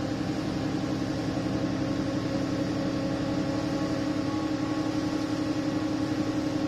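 Alexander Dennis Enviro 300 single-deck bus's diesel engine running steadily, heard from inside the passenger saloon as a steady hum over a rumble.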